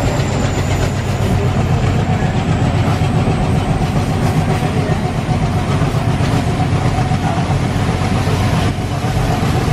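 ALCO WDG-3A diesel locomotive's 16-cylinder engine running steadily with a fast, even chugging, heard from the train riding behind it.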